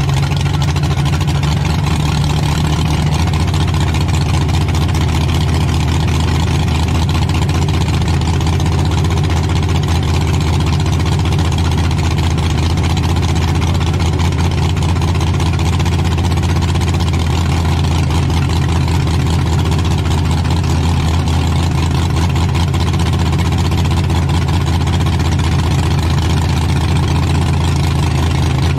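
Demolition derby stock truck's engine idling steadily, heard loud and close from inside the stripped-out cab.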